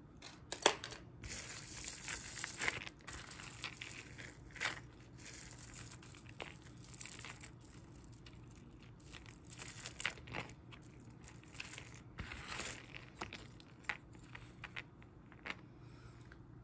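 Costume jewelry being handled on a mat: beaded and metal-chain necklaces are laid out and picked up, giving irregular rustling and scattered light clicks and clinks. The sharpest click comes about a second in.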